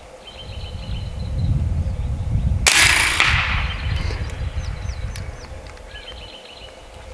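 A single shot from an AEA Terminator .30-calibre semi-automatic PCP air rifle about three seconds in: one sharp report with a short fading tail. Wind rumbles on the microphone throughout.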